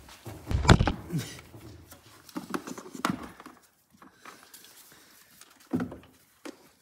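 Irregular knocks and handling noises from tools and parts being moved about in a car's engine bay, with one loud thump about half a second in.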